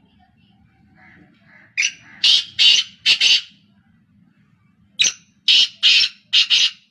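Black francolin giving its harsh, grating call: two loud phrases of four or five rasping notes each, one starting about two seconds in and the other about five seconds in.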